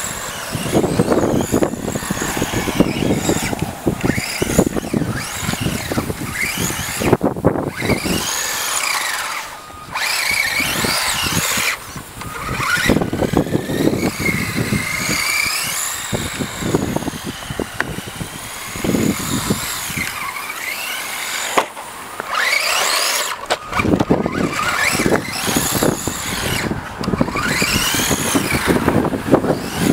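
Radio-controlled buggy driving around a concrete bowl. Its motor whine rises and falls in pitch with the throttle and dips every few seconds, along with tyre noise on the concrete.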